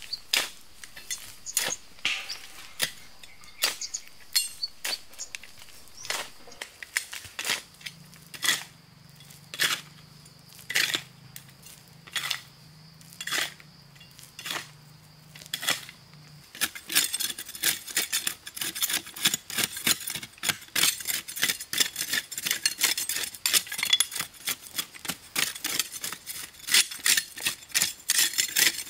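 Repeated short scraping strokes, about one a second at first, turning into a fast, dense run of strokes about two-thirds of the way through.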